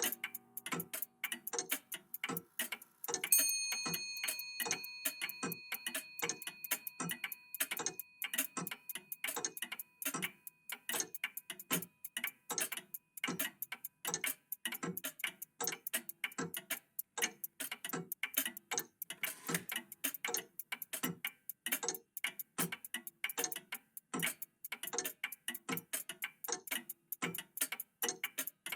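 Several old mechanical clocks ticking at once in an uneven, overlapping rhythm. About three seconds in, a single bell-like clock chime strikes once and rings on, fading slowly over several seconds.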